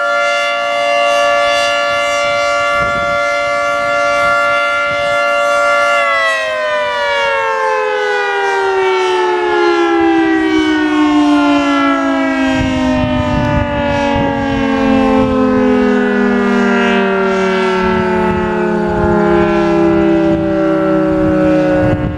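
Federal Signal 3T22 three-tone outdoor warning siren holding a steady multi-tone chord, then winding down from about six seconds in, its pitch falling smoothly for the rest of the time. A low rumble joins about halfway through.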